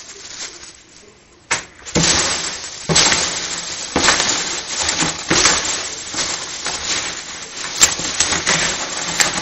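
Hands rummaging through a cardboard box full of foam packing peanuts: a continuous rustling, crunching clatter of the loose foam pieces, starting about two seconds in after a quieter start.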